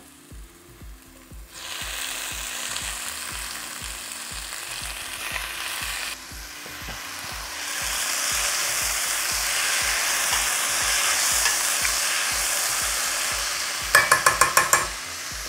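Chopped roasted peppers and tomatoes hitting hot olive oil with browned onions and garlic in a stainless steel pot, sizzling, starting about a second and a half in and growing louder about halfway through. Near the end a metal spoon stirs, clicking rapidly against the pot.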